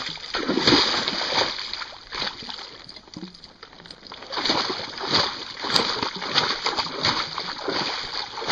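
Horse pawing at shallow creek water with a front hoof, making repeated splashes, with a lull about two seconds in before the splashing picks up again.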